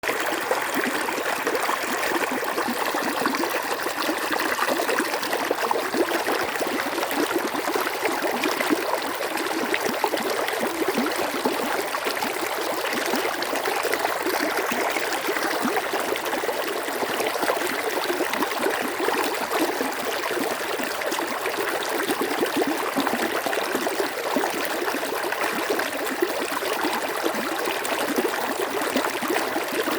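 Stream water flowing steadily over stones, a continuous rushing with fine trickling and gurgling.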